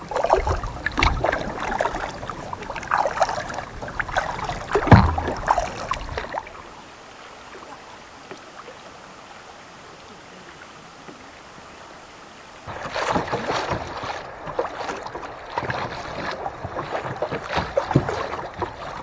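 Kayak paddle strokes splashing and water sloshing close against the kayak, in uneven strokes. About six seconds in it drops to a quieter steady water hiss for several seconds, then the close paddling splashes return about thirteen seconds in.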